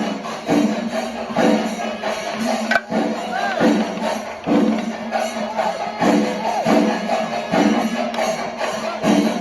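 Chenda melam: a Kerala ensemble of chenda drums beaten with sticks and ilathalam cymbals clashing, playing a dense rolling rhythm with heavy accents about once a second.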